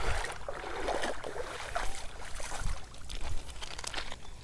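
Small waves lapping and washing over a pebble shore, uneven and splashy, with wind buffeting the microphone.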